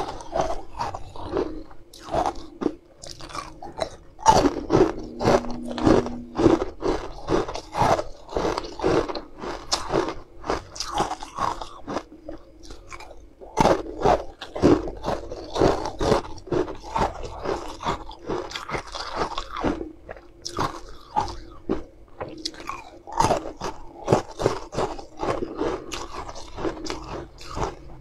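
Hard frozen ice pieces being bitten and chewed: a dense, irregular run of sharp crunching cracks, with a short pause between mouthfuls about halfway through.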